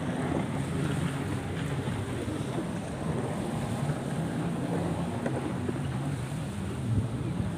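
Jet ski engines droning steadily out on the water, with wind buffeting the microphone and light surf.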